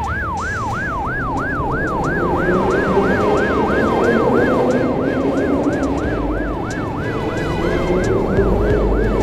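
A fast yelping ambulance-style siren on a cartoon medical-service train, sweeping down and up about three and a half times a second. A lower, slower wailing tone and a steady rumble run underneath.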